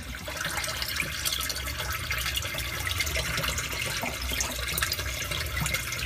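Water pouring and splashing steadily into a sump pit, filling it to lift the sump pump's float switch.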